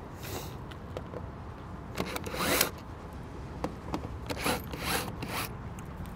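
Cordless drill/driver spinning in short whirring bursts as it backs out the 5/16 screws holding a welder's control panel. There are about five bursts, and the loudest and longest comes about two seconds in.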